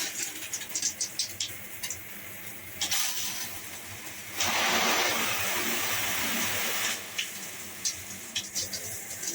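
Water spraying from a handheld shower head, with plastic clicks and taps as the head is handled. About four and a half seconds in, a louder rush of spray comes in for around two and a half seconds, then drops back to the softer hiss.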